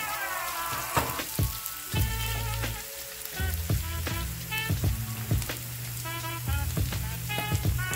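Chopped red onion and garlic sizzling in hot oil in a frying pan, stirred with a wooden spoon that clicks and knocks against the pan now and then. Background music plays over it.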